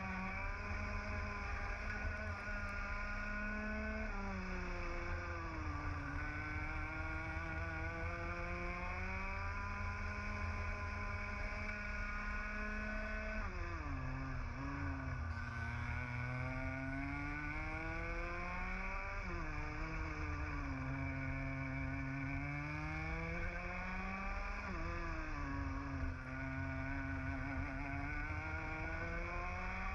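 Two-stroke TAG kart engine heard onboard at racing speed. Its note climbs steadily on the straights and drops sharply four times as the throttle comes off into corners, over a steady low rumble.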